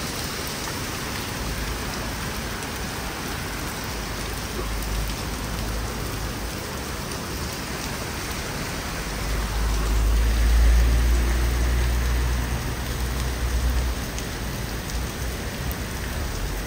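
Torrential rain pouring steadily onto pavement, plants and trees, a dense, even hiss. About halfway through, a deep low rumble swells up for several seconds, then drops back.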